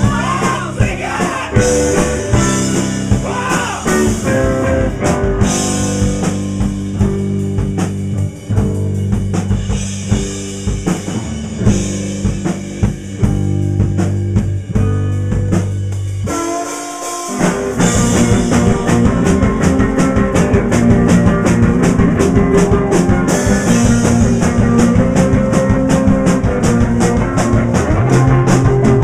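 Rock band playing live on electric guitar, bass and drum kit. About two-thirds of the way through, the low end drops out for a moment. The band then comes back in fuller, with fast, steady drumming.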